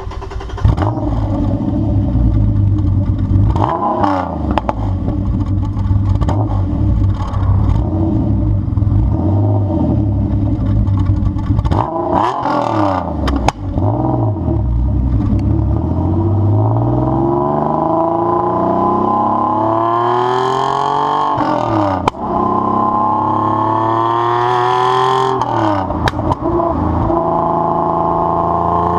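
TVR Tuscan 4.0 Speed Six straight-six engine starting, then idling and being revved repeatedly: several long climbs in revs that fall back to idle. A few sharp exhaust pops come as the revs drop on overrun.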